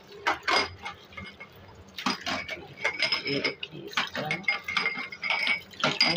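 Drinking glasses clinking against each other and the stainless-steel sink as they are scrubbed with a sponge under running tap water. Two sharp clinks come about half a second in, then a busy run of clinks with a ringing glass tone from about two seconds on.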